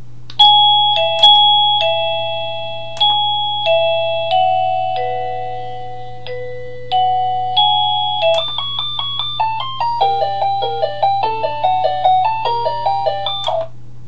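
1Byone Easy Chime plug-in wireless doorbell playing its electronic chime tunes: a slow melody of bell-like notes, each struck and dying away, then about eight seconds in a faster tune of short notes.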